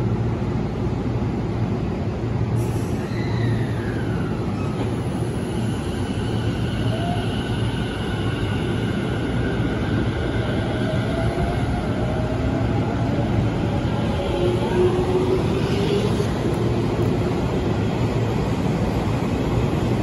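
Tobu 50090-series electric train pulling away from a standstill, over the steady rumble of its running gear. About two and a half seconds in, a high steady whine starts, then the inverter and traction motors give off tones that slide upward in pitch as it gathers speed.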